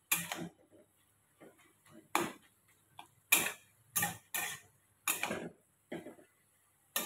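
Metal spatula scraping and knocking against a metal kadhai while stirring and turning cooked mustard greens, about eight short strokes at an uneven pace.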